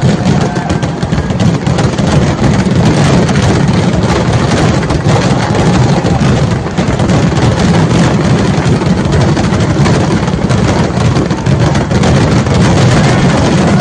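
Continuous barrage of firework explosions, too many and too fast to count, blending into one steady din with a heavy low rumble, as in a Kerala vedikettu fireworks display.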